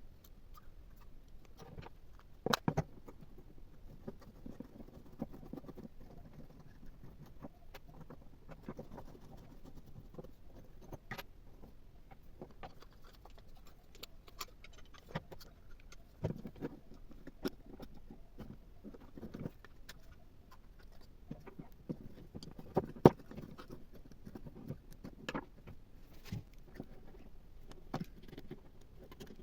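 Scattered light clicks, taps and rustles of small parts and tools being handled on a workbench, with a few sharper knocks. One knock comes a couple of seconds in and the loudest about three quarters of the way through.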